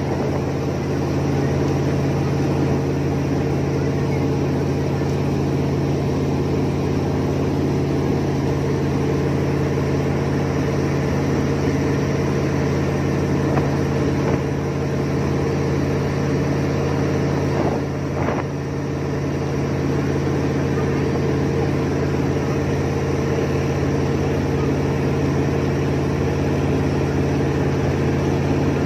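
Jet boat engine running steadily, a constant drone that holds one pitch throughout.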